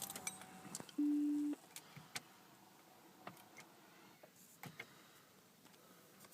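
A single steady electronic beep lasting about half a second, about a second in, then a few faint clicks: the Ford BA Falcon XR6 Turbo's dashboard chime as the ignition is switched on, before the engine is cranked.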